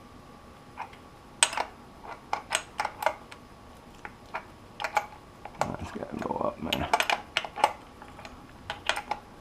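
Irregular metallic clicks and clinks of hand tools and parts worked on a dirt bike's rear axle and chain adjusters, with a denser clatter about six seconds in.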